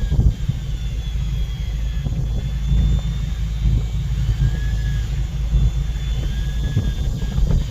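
Fishing boat's engine running with a steady low rumble, with a faint high whine that rises and falls over it.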